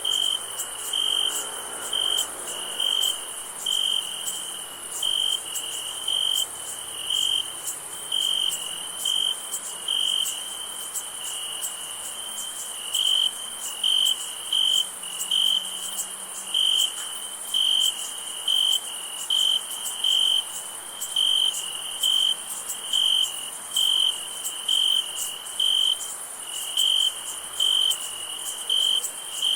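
Crickets chirping in a steady rhythm, about three loud chirps every two seconds, over a continuous high-pitched insect trill.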